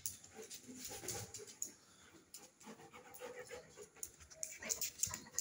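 A young German Shepherd panting, with scattered light clicks of its claws on a tiled floor, more of them near the end.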